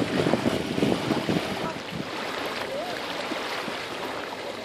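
Wind buffeting the microphone over water rushing past a small boat at sea; the noise drops to a quieter, steady water sound about two seconds in.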